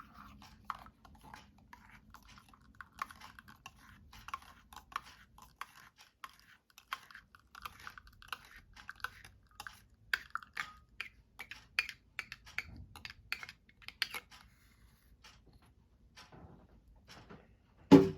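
Light irregular clicks and clinks of a spoon against a ceramic cup while coffee is being stirred and handled, several a second and loudest in the middle.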